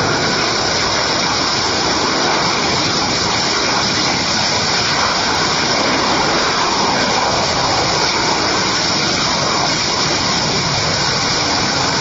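Liquid-fuelled rocket engine of a tethered VTVL test rocket firing steadily while the vehicle hovers, a loud, even noise with no change in level.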